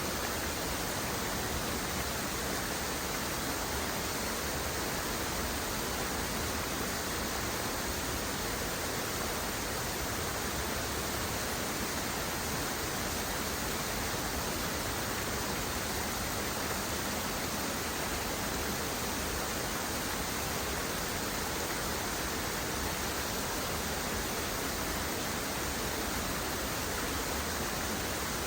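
A steady, unchanging rush of falling water, an even hiss with no separate drops or splashes.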